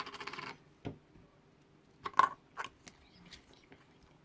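Handmade slime being handled: a quick run of fine crackling at the start, then a few scattered short clicks and pops, the loudest a little after two seconds in.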